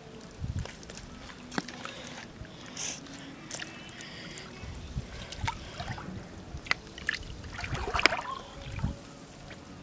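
Shallow water sloshing and splashing around a person wading among rocks, with scattered small clicks and a few short splashes, the loudest about eight seconds in.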